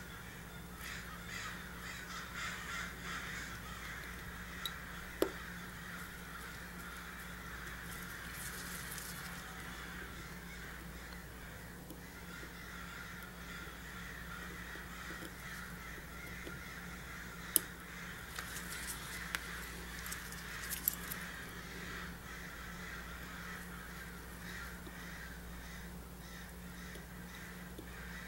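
Steel tweezers clicking sharply a few times against a watch movement while its setting lever spring is fitted, most clearly about five seconds in and again at around eighteen seconds, followed by a small run of lighter clicks. Under the clicks runs a steady, low background hum.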